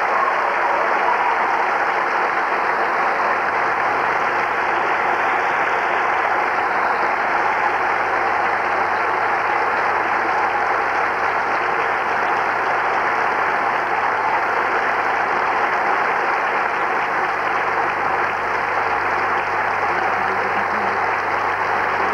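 Audience applauding steadily, with a faint low hum underneath from about three seconds in.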